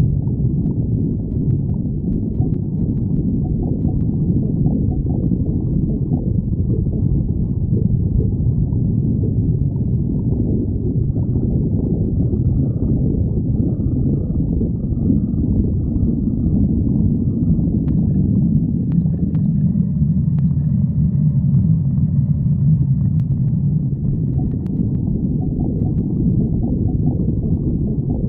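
Stomach growling: a continuous low rumble that goes on without a break.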